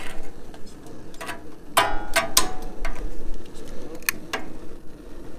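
A handful of sharp, irregular metallic clicks and taps around the new stainless gas burner tubes, bunched together about two seconds in. Under them runs a steady low rush from the lit burners, turned down to about a third.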